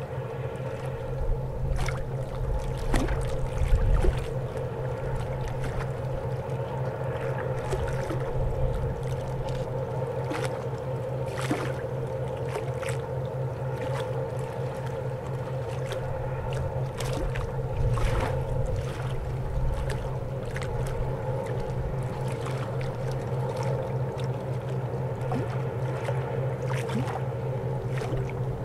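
Towboat diesel engines droning steadily while pushing barges: a low, evenly pulsing hum with steady higher tones above it. A few short ticks and low rumbles come and go.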